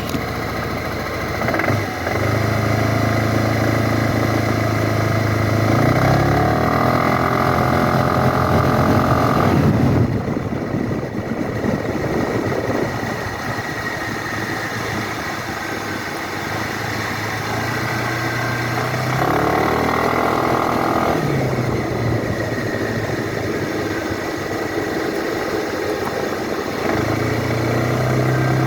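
2012 Suzuki Burgman scooter engine running and accelerating twice, its pitch climbing for a few seconds from about six seconds in and again from about nineteen seconds in, then dropping back. The owner uploaded it as a knocking sound under acceleration.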